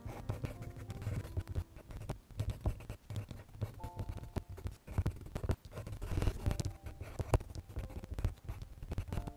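Prismacolor colored pencil scratching on drawing paper in many short, quick shading strokes, with a few faint notes of soft background music.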